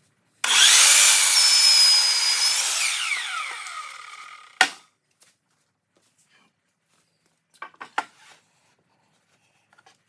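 Sliding compound miter saw starting and cutting through a wooden board, then its blade spinning down with a falling whine that fades over about two seconds. A sharp knock comes just after it stops, and a few short wooden clatters follow near the end as boards are handled.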